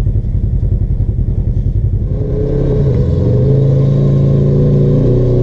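Polaris RZR side-by-side's engine running with an uneven, pulsing rumble, then rising about halfway through to a louder, steady drone as the machine is brought up to a rock ledge on its winch line.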